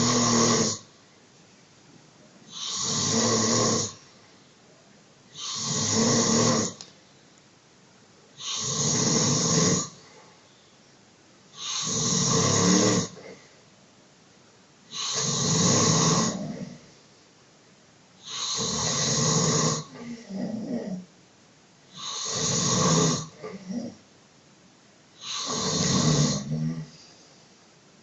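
A man snoring loudly and regularly, one snore about every three seconds, a couple of them followed by short broken snorts.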